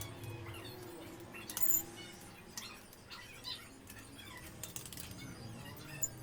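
Light metal clinks and clicks from iron bed-frame parts being handled and fitted together, a sharp click about a second and a half in and another near the end.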